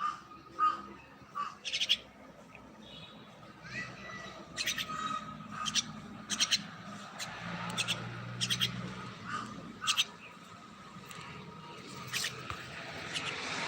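Common myna calling: a string of short, sharp chirps and clicks at irregular intervals, with a few whistled notes between them.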